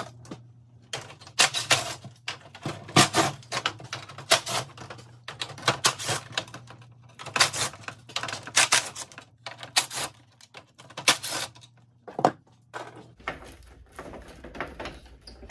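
Cordless drill-driver backing out the 5/16 bolts that hold a plastic truck upper grille mount, heard as a long run of short bursts and sharp clicks and rattles, thinning out near the end.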